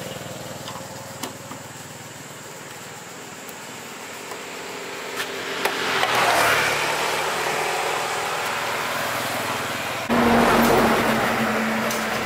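Motorbike passing on the road, its noise swelling and fading about halfway through. About two seconds before the end, a louder engine sound starts suddenly with a steady hum.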